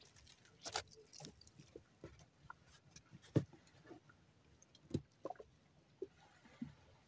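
Scattered small knocks and clicks, with a louder thump about three and a half seconds in and another about five seconds in.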